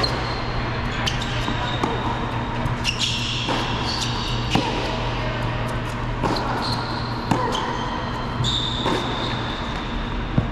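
Tennis rally on an indoor hard court: sharp pops of racquets striking the ball and the ball bouncing, about one every second, with short high-pitched squeaks from sneakers sliding on the court. A steady low hum from the hall's ventilation runs underneath.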